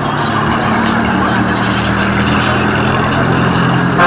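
Motor vehicle engine running steadily close by, a low even hum under broad road noise.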